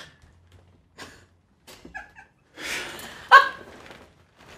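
Actors laughing: scattered breathy snickers, then a loud, high-pitched burst of laughter a little past three seconds in.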